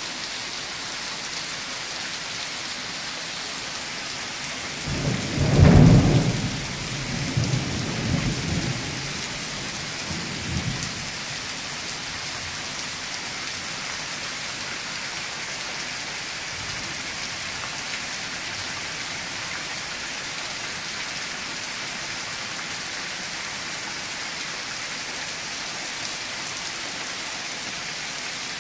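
Steady rain falling throughout, with a clap of thunder about five seconds in that peaks about a second later and rolls on in weaker rumbles until around eleven seconds.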